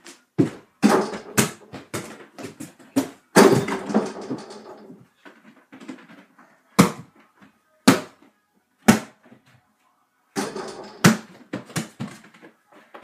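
A basketball bouncing on the floor and hitting a mini over-the-door hoop: a series of sharp thuds. Several come close together in the first few seconds, with a louder hit that rings on about three seconds in, then single bounces about a second apart, then another quick cluster near the end.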